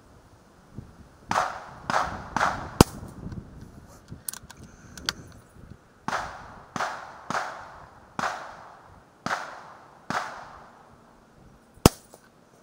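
Shots from a regulated .177 Air Venturi Avenger PCP air rifle: two sharp cracks about nine seconds apart. Between them comes a run of about nine duller reports, each with a short fading tail.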